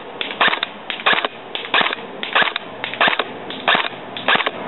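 G&G blowback airsoft electric rifle firing single shots in steady succession: about seven sharp cracks, roughly one every two-thirds of a second.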